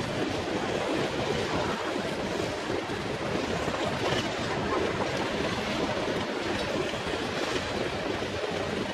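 Steady rushing noise with wind buffeting the microphone, with no distinct knocks or rhythm.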